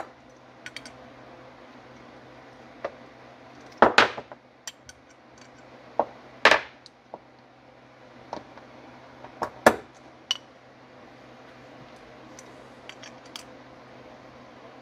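Scattered metallic clicks and clinks of small hand tools and the metal parts of a Marvel Schebler carburetor being handled and screwed together on a workbench, the loudest about 4, 6.5 and 10 seconds in. A steady low hum runs underneath.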